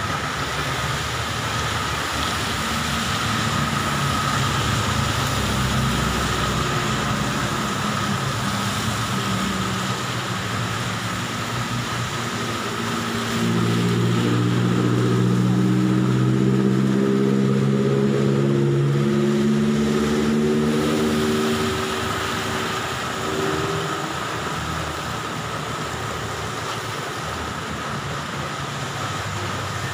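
A vehicle engine running over a constant hiss of heavy rain, the engine growing louder about halfway through and fading back after several seconds.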